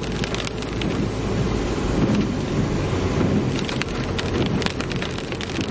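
Inside a moving ute: steady road and engine rumble, with rain pattering on the vehicle in scattered taps.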